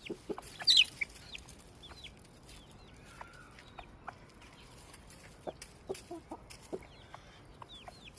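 Backyard chickens clucking, with short calls scattered throughout. One louder, sharper call comes just under a second in.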